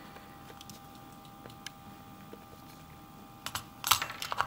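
A metal knife tool pressing on a circuit board inside a plastic sensor housing: a few faint clicks, then a quick run of sharp plastic clicks and snaps near the end as the board is pushed out of its clips.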